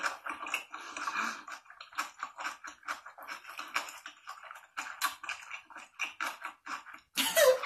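Close-miked mukbang chewing of a large mouthful of lettuce wrap (ssam) with rice, ssamjang and chili pepper: many quick, sharp, irregular crunching clicks, heard through the mukbang video's playback. A voice cuts in near the end.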